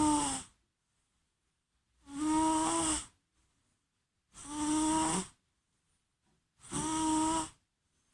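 Domestic cat snoring in its sleep: the tail end of one snore at the start, then three more, each about a second long and spaced roughly two and a half seconds apart, with silence in between.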